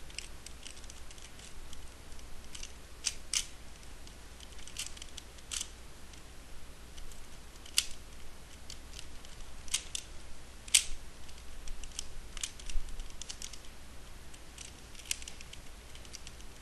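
Dayan Guhong 3x3 speedcube being turned one-handed: irregular plastic clicks and clacks as its layers snap round, with short pauses between turns.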